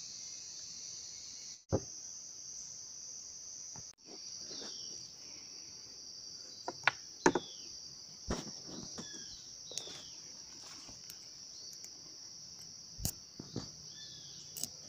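Steady high-pitched drone of an insect chorus in forest, with short falling bird calls every few seconds and scattered knocks and clicks from camp gear being handled.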